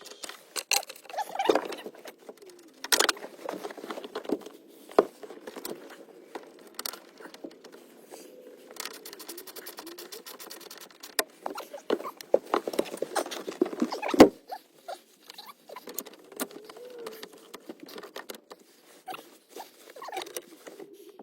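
Plastic dash parts and the car stereo being handled and pressed into place: squeaking and rubbing with many small clicks and a few sharp knocks, the loudest about fourteen seconds in.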